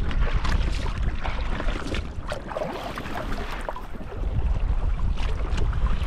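Wind buffeting the microphone with a heavy low rumble, over water slapping and splashing against a kayak hull moving through choppy sea. The wind eases about two seconds in and picks up again around four seconds.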